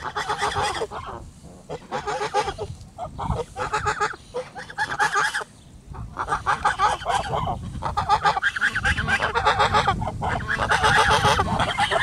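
Aylesbury ducks quacking loudly and repeatedly, in runs of rapid calls with short pauses, the calling getting almost continuous after about six seconds.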